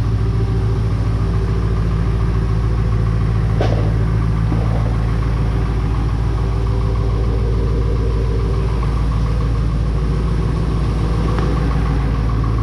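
1995 Ford F-250 pickup engine idling steadily, with a light click about four seconds in and another near the end.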